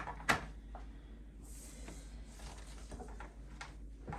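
Faint handling noises: one sharp click just after the start, then scattered soft taps and rustles over a low steady hum.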